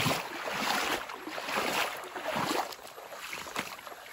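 Shallow stream running over stones: a steady rushing water noise that grows quieter about three seconds in.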